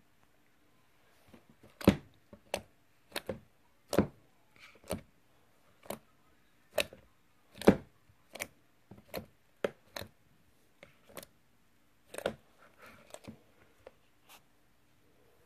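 Slime being squeezed and poked, giving a series of sharp pops and clicks at uneven intervals, about one a second.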